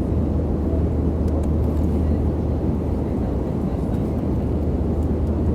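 Airliner cabin noise: the steady low drone of engines and rushing air heard from inside the passenger cabin, with a constant low hum beneath it.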